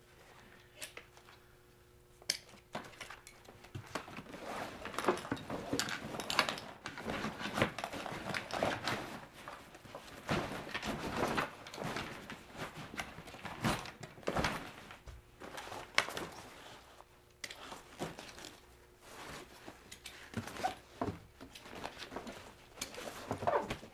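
Irregular rustling and knocking of folding-kayak seats and seat cushions being handled and packed into a fabric bag.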